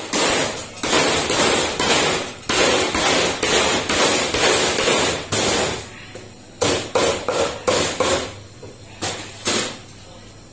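Cleaver chopping lemongrass stalks on a thick wooden chopping block: rapid, closely spaced chops for about six seconds, then a run of slower, separate chops that stop shortly before the end.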